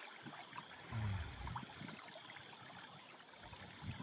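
Creek water trickling faintly, with a brief low bump about a second in.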